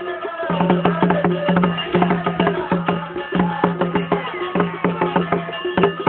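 Music with busy, rapid percussion and held melodic tones; a low bass note comes in about half a second in and pulses on and off.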